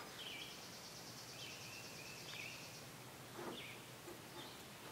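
Quiet background with small birds chirping now and then over a low steady hiss, and one soft knock about three and a half seconds in.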